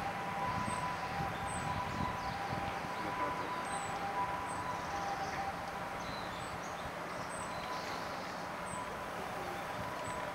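Faint short high calls of a Naumann's thrush, scattered and moving away, over a steady hiss and a steady droning hum from the amplified background.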